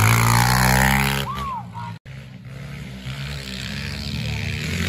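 Small pit bike engine revving loud and close, falling in pitch as the bike rides past. After an abrupt cut about two seconds in, another pit bike engine runs quieter and revs up again.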